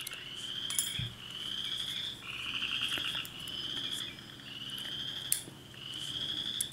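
High trilling calls of a small animal, one trill about every second, each rising slightly in pitch, repeating steadily. A couple of faint clicks of tweezers on the lock cylinder, about a second in and again after five seconds.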